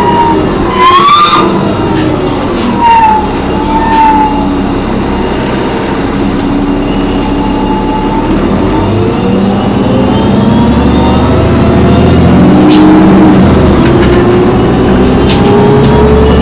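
Loud screeching whine from a New Flyer D40LF transit bus, coming from the brakes or the transmission. Its pitch falls early on, squeals higher around one, three and four seconds in, then climbs steadily near the end, over the low rumble of the diesel drivetrain, with a few sharp clicks.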